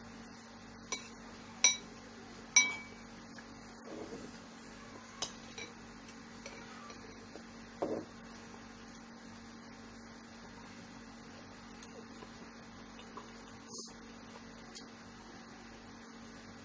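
Spoon clinking against a bowl during eating: sharp clinks about a second in and twice more over the next two seconds, one of them ringing briefly, then a few softer clinks and faint taps further apart. A steady low hum runs underneath.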